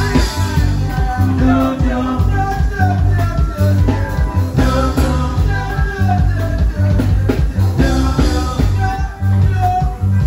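Loud dance music with a steady heavy bass beat, and a man singing along into an amplified microphone.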